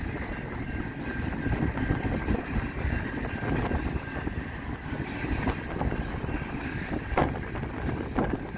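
Double-stack intermodal container train rolling past: a steady rumble of steel wheels on rail, with a few sharp clacks near the end.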